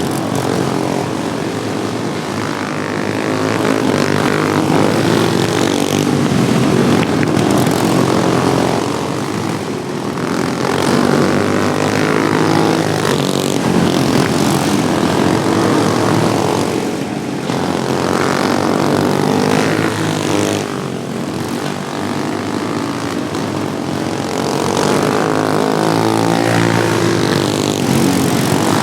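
Several modified racing lawnmower engines buzzing at high revs as they race laps. The sound swells and fades every few seconds as the mowers pass, and the pitch of the engines shifts with throttle.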